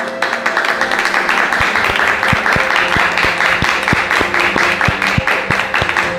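Continuous applause, many hands clapping, with quiet music playing underneath.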